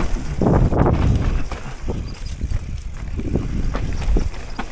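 Enduro mountain bike riding down a rough, rocky trail: tyres rumbling and crunching over rock and roots, with scattered knocks and rattles from the bike and a heavy low rumble throughout.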